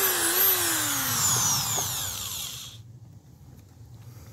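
Power drill-driver running as it drives a screw to fasten a steel angle bracket to a wooden roof-window frame. Its motor whine falls in pitch, then stops abruptly nearly three seconds in.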